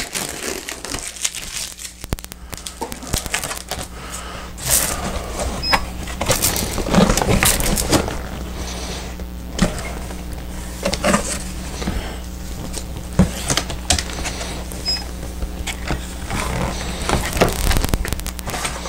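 Handling noise from folding and taping stiff black drawer panels: irregular rustles, creaks and clicks, over a steady low hum.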